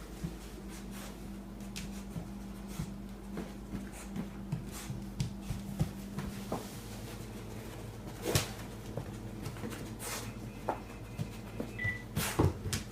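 A puppy moving about searching for a shed antler: scattered light clicks and knocks, with a few louder ones from past the middle onward, over a steady low hum.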